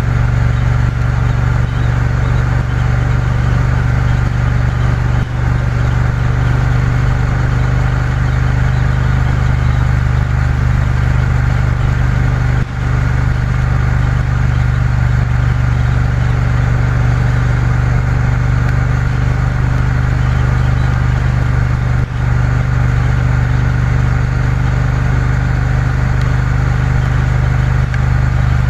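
Triumph Bonneville T120's parallel-twin engine running steadily on the move, with an even rush of noise over it and a couple of brief dips in the engine sound about halfway and three-quarters of the way in.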